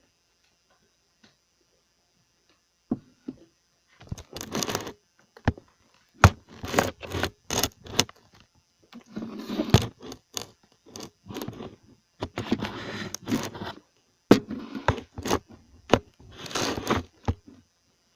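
Handling noise from the recording device being set up: irregular scraping, rustling and knocks, starting about three seconds in after a near-silent start.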